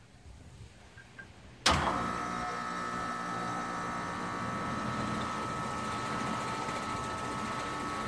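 Carrier central air-conditioner condensing unit starting up with a newly fitted 5-2-1 hard start capacitor on its compressor. It kicks on suddenly with a sharp clunk about two seconds in, then runs steadily with a hum and a steady whine.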